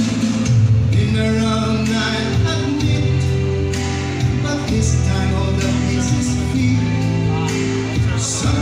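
A live band playing a song with a singer, amplified through speakers, with a strong bass line under the vocal.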